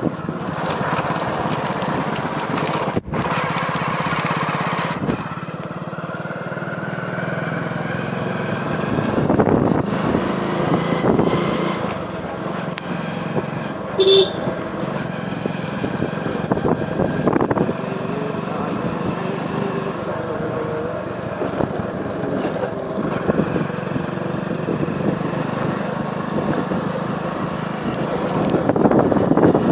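Motorcycle engine running steadily while riding, its pitch rising and falling gently with speed, with one short beep about halfway through.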